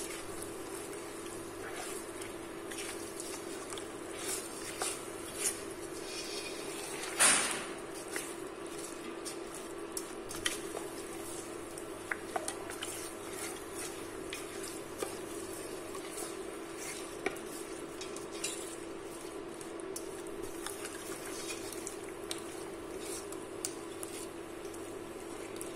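Wooden spoon stirring pieces of duck through oil and spices in a stainless steel AMC pot, with scattered knocks and scrapes against the pot and one louder scrape about seven seconds in. A steady low hum runs underneath.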